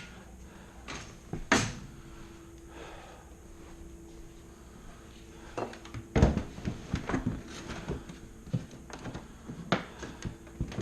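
Scattered knocks and clunks of objects being handled and set down, a few at first and then a quick run of them about six seconds in, over a faint steady hum.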